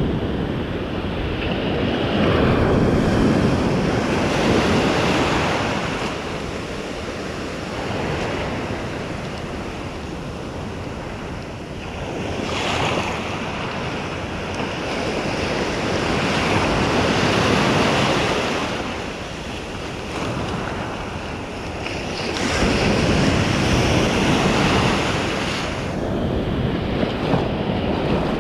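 Ocean surf breaking and washing up the beach, swelling and easing every several seconds, with wind buffeting the microphone.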